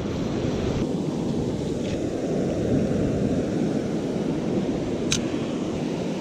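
Ocean surf washing in over a flat beach, a steady rushing noise, with wind on the microphone. A single brief sharp click about five seconds in.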